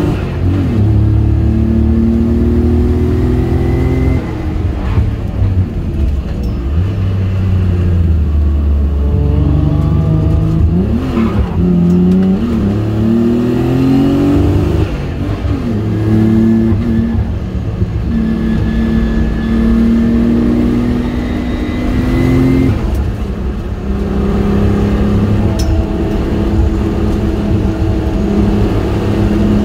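Nissan 300ZX V6 engine heard from inside the cabin, pulling up through the revs and dropping back at gear changes several times while driving on a race track.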